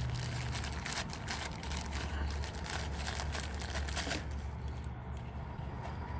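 Small clear plastic bag crinkling as it is handled and opened, the crackle thinning out after about four seconds, over a low steady hum.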